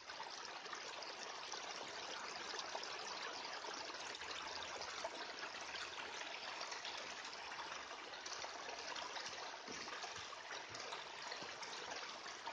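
Shallow runoff stream trickling steadily over stones.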